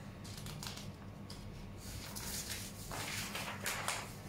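Paper rustling and sliding as the written sheet on a writing pad is turned away to a fresh blank page, loudest in the second half, over a faint steady hum.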